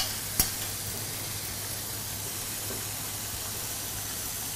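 Hot oil sizzling steadily in a frying pan, with two light utensil clicks about half a second apart at the start.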